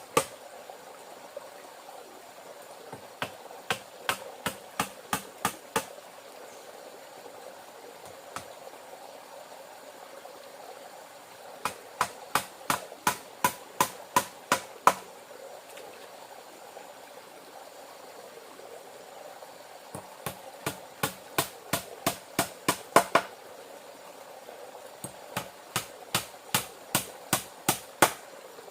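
Sharp strikes, about three a second, in four runs of eight to ten, with one lone strike between the first two runs, over a steady rushing hiss.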